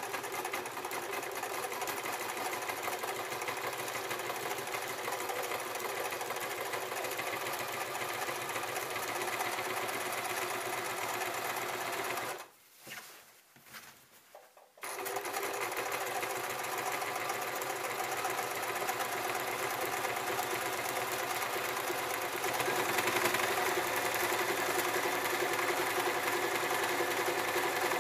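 Domestic electric sewing machine running steadily as it stitches a seam through hammock fabric. It stops for about two seconds a little under halfway through, then starts again and runs a bit louder near the end.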